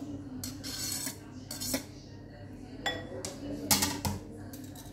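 A knife scraping diced mango across a plastic cutting board into a glass bowl, with a series of short scrapes, knocks and clicks. A clink with a brief ring comes about three seconds in, and the loudest knocks come shortly after as the knife and board are set down.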